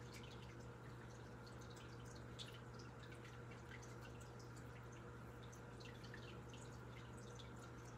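Near silence: steady low room hum with faint, irregular small ticks scattered throughout.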